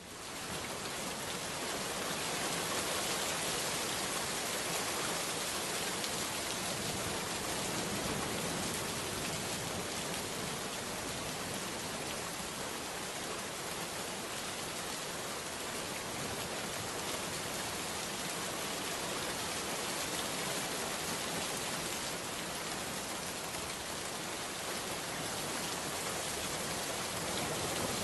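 Steady rain, an even hiss of falling rain that fades in over about the first second and then holds unchanged.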